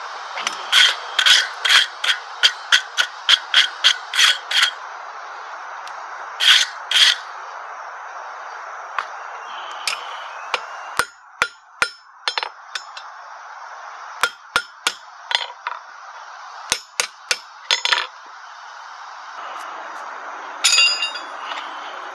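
Blacksmith's hand hammer striking square bar stock held in tongs on an anvil, each blow ringing. A quick run of about three blows a second comes first, then a pair, then lighter scattered strikes with pauses, and one last ringing blow near the end.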